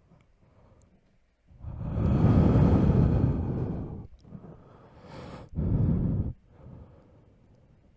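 Heavy breathing close to the microphone: a long, loud breath lasting over two seconds, a quieter breath, then a short, loud one.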